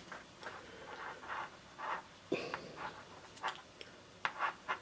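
Short scrapes and light clicks of a craft knife cutting and stripping the insulation off a wire end, with the wire and tools handled between the cuts.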